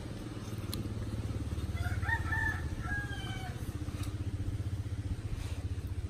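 A rooster crowing once, about two seconds in, over a steady low rumble.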